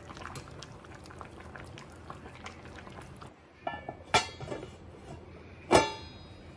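Rice and broth boiling hard in a pot, a steady bubbling with small pops. About three and a half seconds in, a stainless steel lid is set on the pot: a light clink, then two loud ringing clanks of metal on metal about a second and a half apart.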